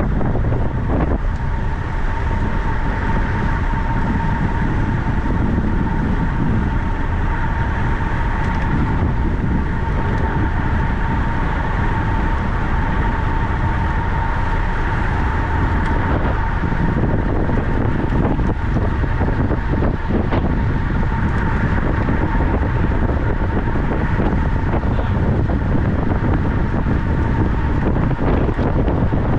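Steady wind rush over the microphone of a camera carried on a moving bicycle, with dense low rolling noise and a thin, steady high whine.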